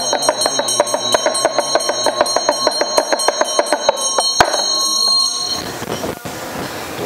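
Tibetan ritual hand bell ringing, shaken fast so that its clapper strikes about six times a second over a steady high ring. There is a last hard strike about four and a half seconds in, and the ringing dies away a second later.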